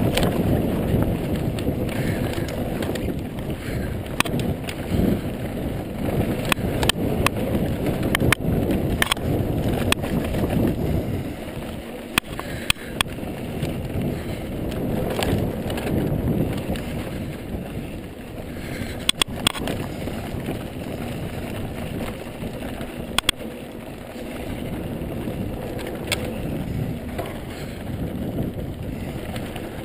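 Ibis Mojo HD full-suspension mountain bike rolling fast down a dry dirt trail: a steady rumble of tyres on dirt, with scattered sharp clicks and knocks from the bike over bumps.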